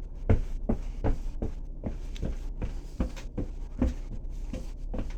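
A steady series of dull knocks or thumps, about two to three a second, over a low hum.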